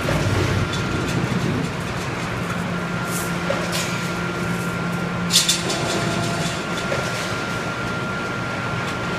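Automatic fence-panel wire mesh bending machine running: a steady mechanical hum with a thin, steady high tone. A few sharp metallic clanks break through, the loudest about five seconds in.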